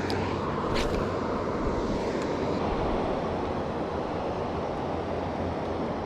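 Steady outdoor rushing noise with no distinct events, with a brief faint tick about a second in.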